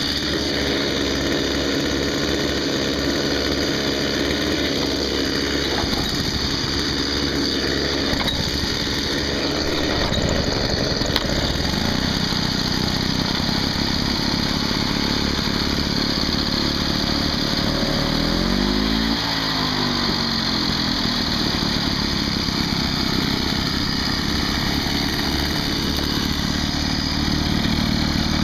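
Victa Mustang lawn mower's two-stroke engine running steadily. About two-thirds of the way through it revs up once and falls back.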